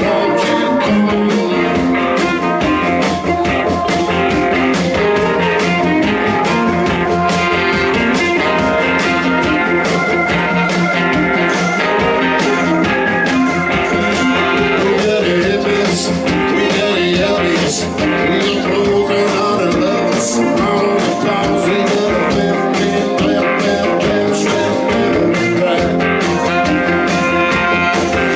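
Blues-rock band playing live, with electric guitar over a steady drum beat.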